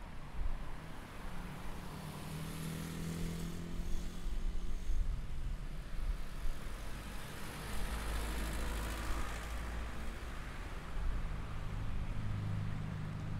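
Road traffic: motor vehicle engines rumbling, with one passing and rising in pitch a couple of seconds in.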